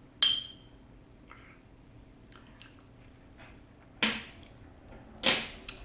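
A glass clinks once with a short ring, then wet mouth sounds: two loud lip smacks or sips near the end.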